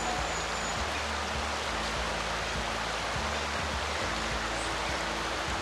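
Shallow river flowing over rocks: a steady rush of water.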